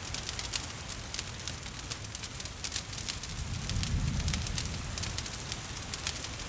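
Wood fire crackling with frequent sharp pops over a steady hiss of rain. A low rumble swells briefly about four seconds in.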